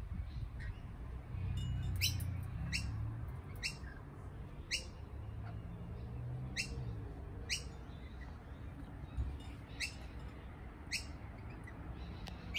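Lorikeet giving short, sharp rising calls, repeated roughly once a second, over a low rumble.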